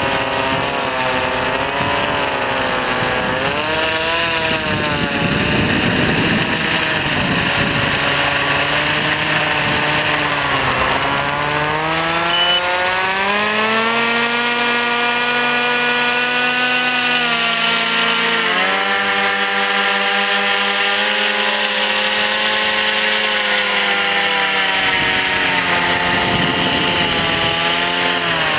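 Remote-control blimp's propeller motors running continuously, their whine rising and falling in pitch several times as the throttle changes.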